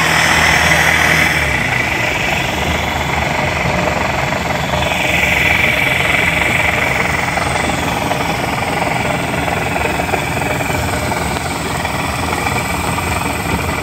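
Outboard motor of a small open fibreglass fishing boat running steadily as the boat travels across the water.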